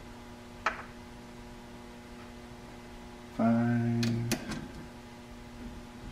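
Cordless power ratchet running in one short burst of just under a second, about three and a half seconds in, running down a bolt on the water pump housing. A sharp metal click comes shortly before it and another as it stops, over a steady electrical hum.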